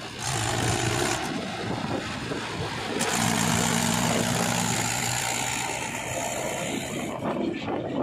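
Mahindra 475 DI tractor's four-cylinder diesel engine running steadily as it pulls a loaded trailer, heard close up over a steady rush of road and wind noise.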